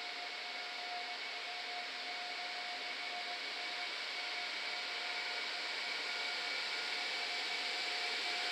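SBB Cargo E474 (Siemens ES64F4) electric locomotive approaching slowly with a freight train: a steady hiss with two constant whining tones, growing gradually louder as it nears.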